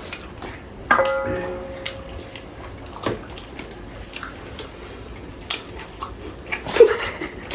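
Small clicks and knocks of dishes during a meal. About a second in there is one sharp clink of a dish that rings for over a second. A louder short sound comes near the end.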